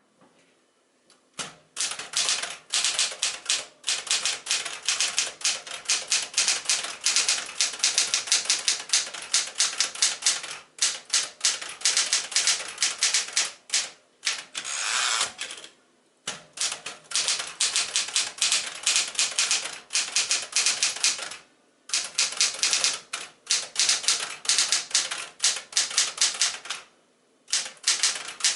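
1975 Smith-Corona Galaxie Twelve manual typewriter being typed on: fast runs of sharp key strikes with a few short pauses.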